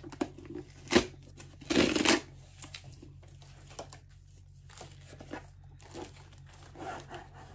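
Delivery packaging being opened by hand. A sharp click comes about a second in, then a tearing rustle around two seconds, the loudest part, followed by quieter rustling and handling.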